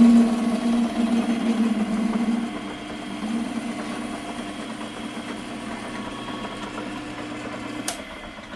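Metal lathe running with a steady motor hum while facing the end of a steel hinge pin, louder for the first couple of seconds. The lathe stops with a click about eight seconds in.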